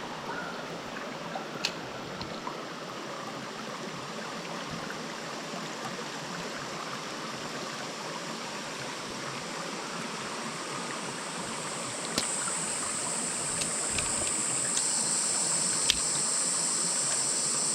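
Small freshwater creek flowing, a steady rush of running water that slowly grows louder. About two-thirds of the way through, a steady high-pitched hiss joins it, with a few sharp clicks along the way.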